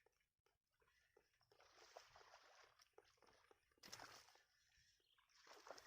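Near silence, with a few faint scattered rustles and ticks.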